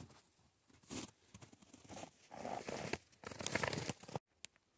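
Footsteps crunching through deep snow, a few uneven steps that grow louder in the second half, then stop suddenly near the end.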